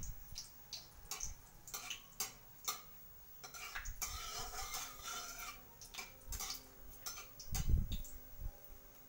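Metal spatula scraping and clicking against a steel kadai while stirring dried red chillies in hot mustard oil, with a dull thump near the end.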